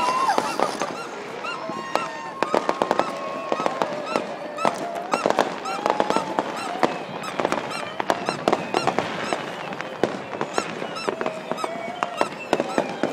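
Aerial fireworks going off: dense crackling and many sharp pops in quick succession. Under them, a crowd shouts and calls, with some long held notes.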